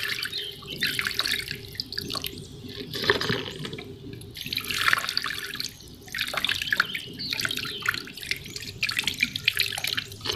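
Water spraying from a shower down into a small tub of water and splashing, in uneven surges that swell and fade every second or two.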